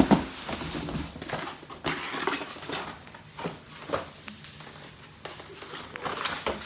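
Irregular knocks, clicks and clatter of vacuum cleaner parts being handled during assembly, loudest at the very start.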